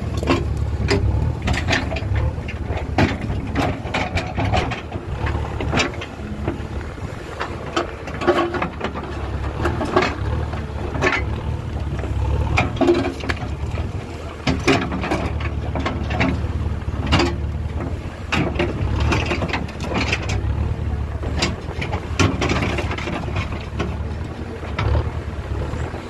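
Diesel engine of a JCB 3DX backhoe loader running steadily under load, with repeated clattering knocks of broken stone scraped and tumbled by the backhoe bucket.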